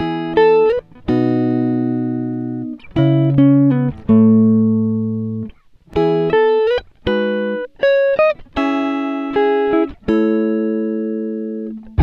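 Background music: a plucked guitar melody in short phrases, each note starting sharply and ringing out, with brief breaks between phrases.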